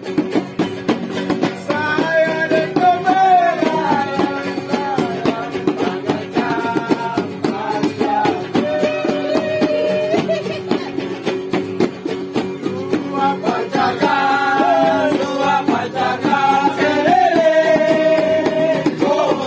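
Singing over strummed acoustic guitars, a relaxed folk-style song. Steady strumming runs underneath, and the voice comes in about two seconds in, singing in phrases with short pauses.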